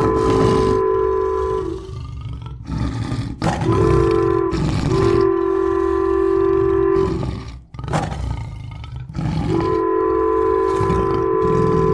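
Train horn sounding a chord of several notes in long blasts, breaking off twice, over the low rumble of a train on the rails.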